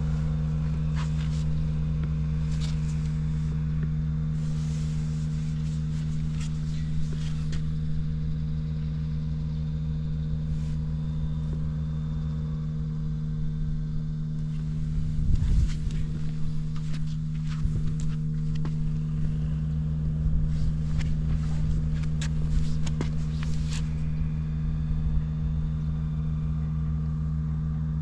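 Honda Ape 50 single-cylinder four-stroke engine, bored up with a Takegawa kit and fitted with a short exhaust pipe, idling steadily. The idle gets briefly louder and rougher about halfway through. The seller bills the engine as running with no abnormal noise.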